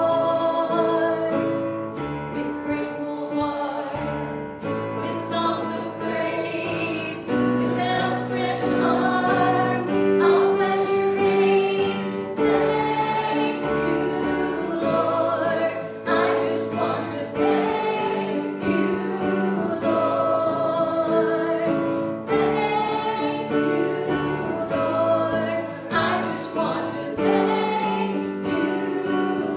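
Voices singing a gospel hymn together with instrumental accompaniment, a steady bass line under held, sung notes.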